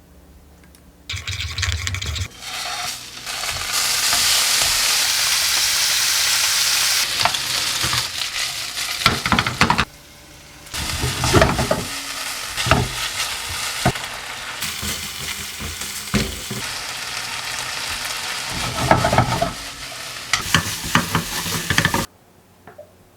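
Pork jowl sizzling as it is stir-fried with gochujang in a hot pan, with a spatula scraping and knocking against the pan. The sizzle is loudest early on, breaks off briefly about ten seconds in, and stops suddenly near the end.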